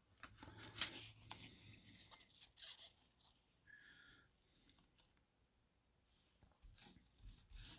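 Faint rustling and scraping of a stack of baseball trading cards being slid and shuffled through gloved fingers, in short irregular strokes.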